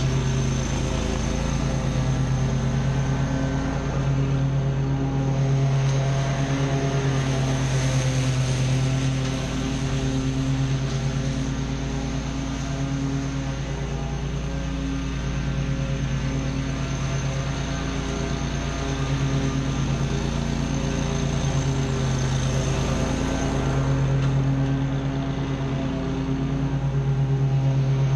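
Engine of a stand-on zero-turn lawn mower running steadily under mowing load, its hum swelling and fading a few times as the mower moves across the lawn.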